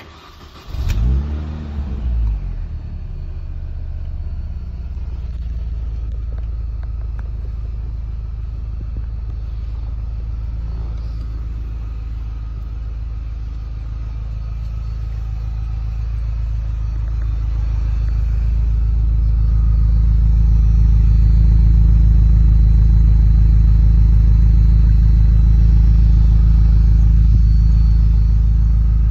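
2004 Mini MC40's four-cylinder engine starting: it catches about a second in and flares up in revs, then settles into a steady idle. The idle grows louder in the second half, heard close to the twin centre exhaust tips.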